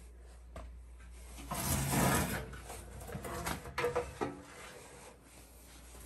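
Sheet metal scraping and rubbing as the furnace blower assembly is handled, with one longer scrape about a second and a half in, then a few short knocks.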